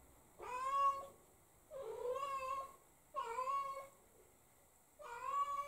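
Silver tabby American Shorthair cat meowing four times, each call lasting about half a second to a second. They are lonely calls for an absent owner.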